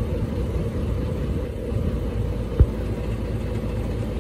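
Small boat motor idling, a low steady rumble. A single short knock about two and a half seconds in.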